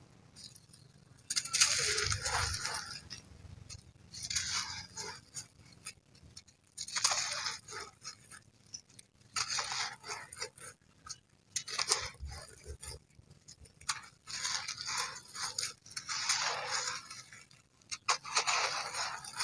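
Dried sand-cement chunks being crumbled by hand: a run of gritty crunching bursts, each about a second long, with short pauses between them.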